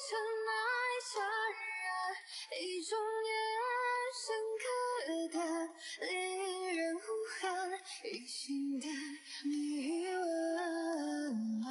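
Background music: a woman singing a melody, with notes held and gliding from one pitch to the next.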